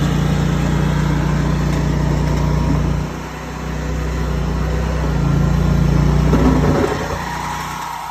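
Mini tracked skid steer's engine running while it works, falling off about three seconds in, building up again, then easing back near the end.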